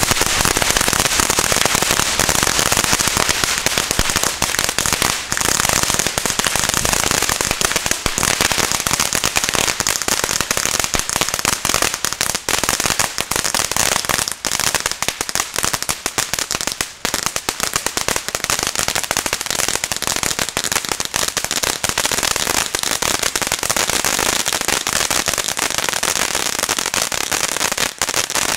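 Lesli Cone of Crackling fountain firework spraying sparks, with a dense, continuous hiss and crackle of countless tiny pops.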